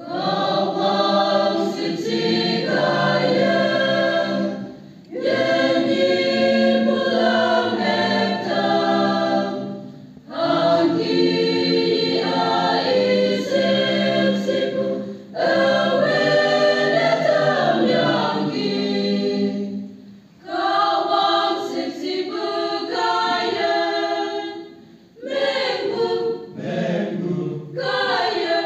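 Mixed choir of men's and women's voices singing a song in phrases about five seconds long, each followed by a brief pause for breath; near the end the phrases become shorter and more clipped.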